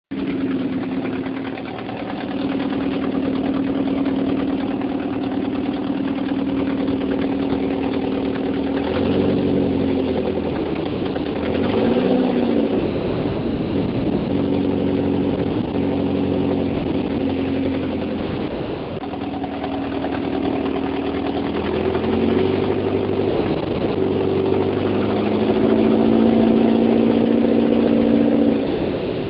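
1978 Porsche 924's 2.0-litre Audi inline-four with K-Jetronic injection running at idle, its revs rising and falling a few times, with the odd noise its owner is chasing. He thinks it sounds like an exhaust leak, possibly at the manifold-to-pipe joint where a bolt has broken off, rather than knock from low-octane fuel.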